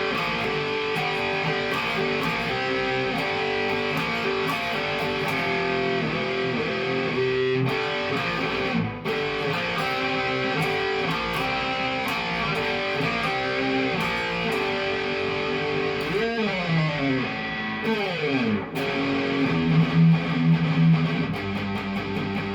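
Cort Viva guitar played solo: sustained lead notes with string bends, and a few notes sliding down in pitch about three quarters of the way through.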